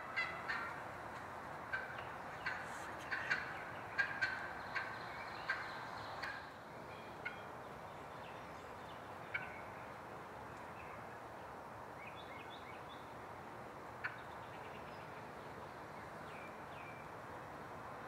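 Wild turkey calling: a string of short, sharp notes over the first six seconds, then a single note now and then.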